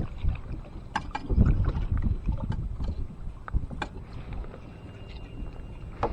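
Kayak on the water: scattered sharp clicks and knocks of gear against the hull, over low, uneven rumbling of wind on the microphone.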